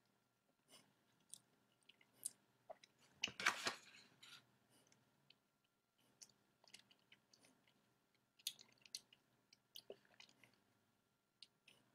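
Faint, scattered wet mouth clicks and smacks from a miracle berry tablet being rolled around on the tongue as it dissolves, with one brief louder noise about three and a half seconds in.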